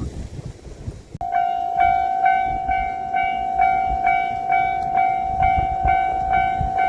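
A Japanese railway level-crossing alarm starts up a little over a second in: a loud ringing bell tone pulsing about twice a second, the warning that a train is approaching. Low wind rumble runs underneath.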